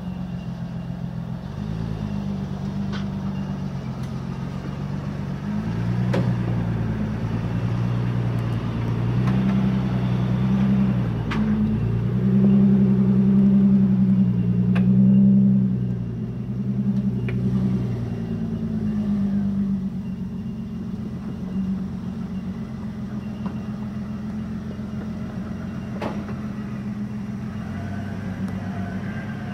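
Nissan Patrol 4WD's engine running at low revs as it crawls through a deep rut, growing louder as it climbs out and passes, with a few sharp knocks along the way. Near the end a second 4WD engine holds a steadier, quieter note.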